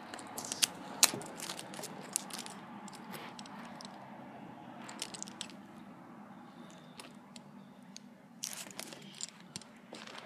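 Plastic mechanical pencils handled in the hands: a scatter of sharp plastic clicks and rattles, densest in the first two or three seconds and again about five seconds in and around eight to nine seconds in, over a faint steady hum.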